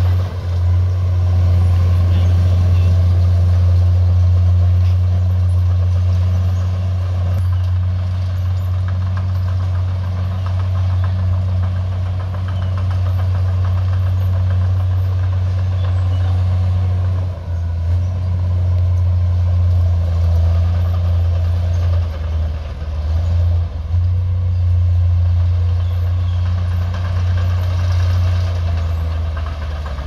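A heavy diesel engine of earthmoving machinery running steadily as a deep, constant hum, dipping briefly about seventeen seconds in and again a few seconds later.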